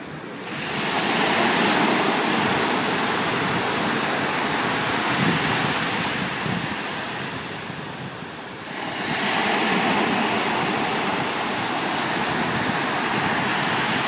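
Ocean waves rushing along the side of a sailing cruise ship, with a wind hiss, heard from an enclosed cabin balcony. The sound comes in two long swells: the first builds about half a second in and eases off toward eight seconds, and the second builds again about nine seconds in.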